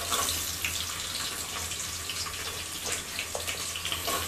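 Sliced onions sizzling in hot oil in a pressure cooker as more handfuls are dropped in: a steady hiss with scattered small crackles.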